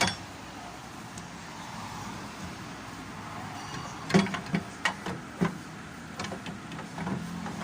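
Hand tools and metal motorcycle parts being handled during reassembly: a sharp clink at the start and a quick run of knocks and clinks about four to five and a half seconds in, over a steady background hum. A low hum grows in near the end.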